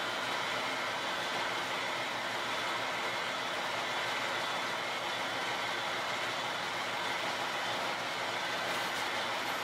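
KiHa 32 diesel railcar's engine idling steadily while the car stands at a platform, a constant hum with a cluster of steady tones.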